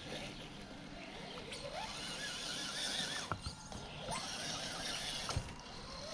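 Trail Honcho RC rock crawler's electric motor and gear train whining, rising in pitch with the throttle and then holding steady, as it crawls over rocks. Two sharp knocks, about three and five seconds in, as it bumps against rock.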